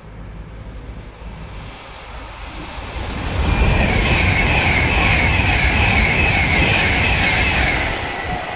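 Passenger train passing through a station: the rumble of wheels on rail builds over about three seconds, holds loud with a high wavering whine over it, then fades near the end.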